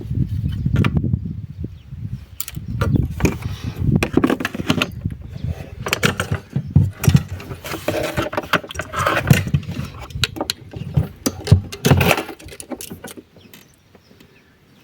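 Irregular clinks, knocks and scrapes of metal tools and car parts being handled, with a low rumble in the first second or so and a sharp knock about twelve seconds in; it dies down near the end.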